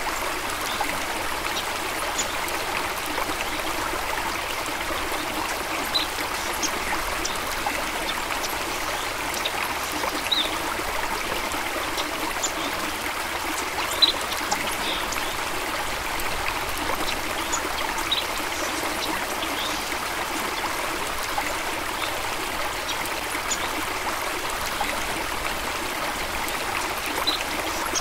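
A small stream running steadily over stones, a continuous babble and trickle with scattered small splashes and drips.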